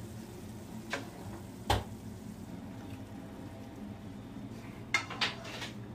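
A few sharp knocks: a faint one about a second in, a loud one just under two seconds in, and a quick cluster of three near the end, over a steady low hum.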